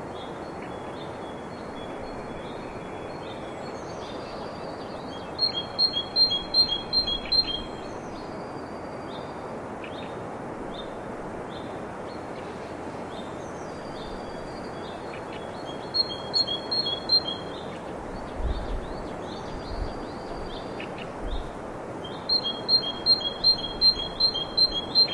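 Birdsong over a steady background hiss: one bird sings a fast run of paired high chirps, about five notes a second, three times, with softer single chirps from other birds between the runs.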